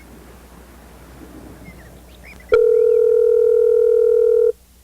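Faint background hiss, then about two and a half seconds in a loud, steady electronic telephone tone sounds for about two seconds and cuts off sharply, the kind of beep a phone's voicemail system plays before a message.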